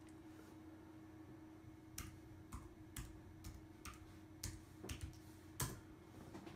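Faint sharp clicks, about a dozen in four seconds starting about two seconds in, roughly two a second but unevenly spaced, over a low steady hum.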